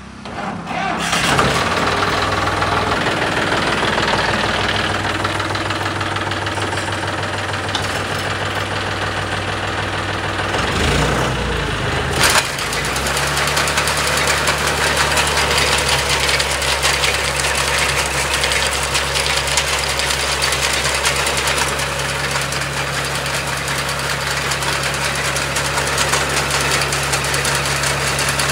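John Deere 5050 E tractor's three-cylinder diesel engine starting and then running steadily. About twelve seconds in the note dips briefly with a click, then settles into a new steady note.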